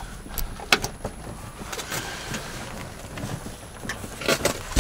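Vinyl seat cover being handled and fitted to a car's rear seat: low rustling with a few sharp clicks, two near the start and a cluster near the end.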